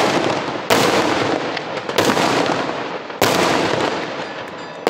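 Daytime fireworks: aerial shells bursting into coloured smoke with four loud bangs, roughly one a second, each followed by a long rolling echo that dies away, with a few smaller cracks between them.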